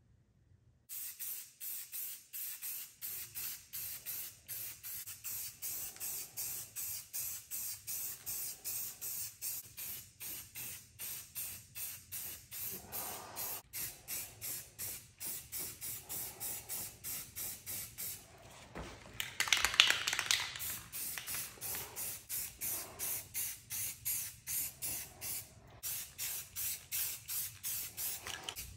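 Aerosol spray-paint can hissing in short, rapid strokes, about three a second, with one louder, longer spray about twenty seconds in.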